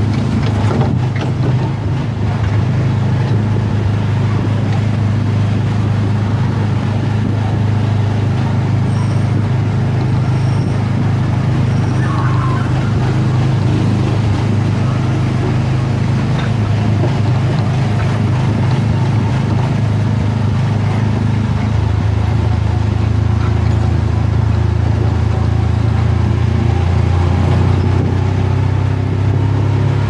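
Autopia ride car's engine running steadily as the car drives along the guided track, a loud, even low drone picked up from a camera mounted on the car's hood.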